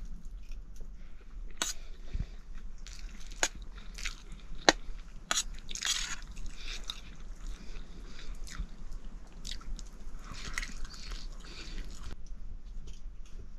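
A person eating: chewing and biting, with several sharp clicks.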